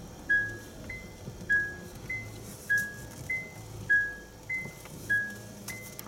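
Honda Odyssey's in-cabin reversing warning chime: a two-note electronic beep, a lower tone then a short higher one, repeating about every 1.2 seconds as the car backs up to park.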